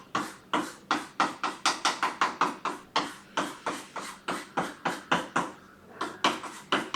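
A marker scribbling back and forth to shade in an area, in quick even strokes of about four a second, with a brief pause near the end before the strokes resume.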